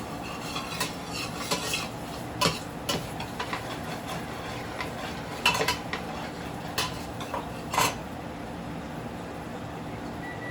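Kitchen utensils clinking and scraping against pots and dishes during cooking, in scattered clinks for about the first eight seconds, then stopping and leaving a steady low hum.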